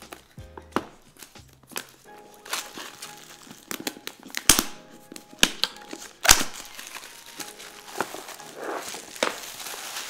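Plastic shrink wrap crinkling and tearing as it is peeled off a cardboard product box, with a few sharp knocks from handling the box midway. Background music plays throughout.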